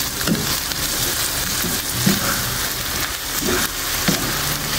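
Tilapia sisig frying in a hot pan with egg added, a steady sizzle throughout.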